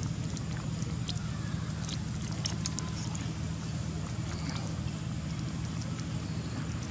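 A steady low motor drone, with scattered faint clicks and rustles over it.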